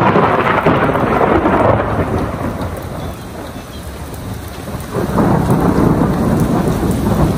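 Thunder rumbling over steady rain, loudest in the first two seconds, easing off, then swelling again about five seconds in.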